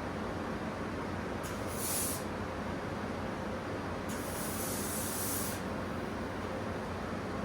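Powder-coating spray gun hissing in bursts of air: a short spray about two seconds in and a longer one of about a second and a half near the middle, over a steady low background noise.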